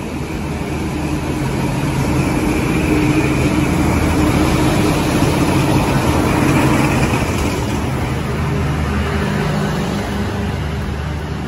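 A motor vehicle running, its engine hum and road noise steady, growing louder over the first few seconds and easing off again near the end.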